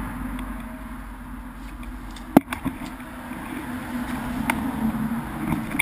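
Road noise of a vehicle in motion, picked up by a camera mounted on it: a steady low rumble and hum, with a few sharp knocks and rattles. The loudest knock comes about two and a half seconds in.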